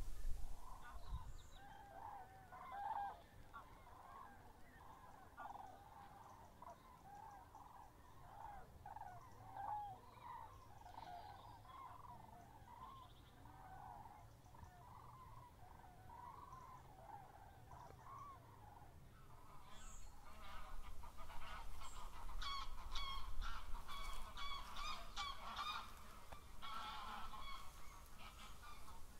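Many birds calling at once, a busy overlapping chorus of honking calls. It grows louder and denser, with sharper, higher notes, from about twenty seconds in.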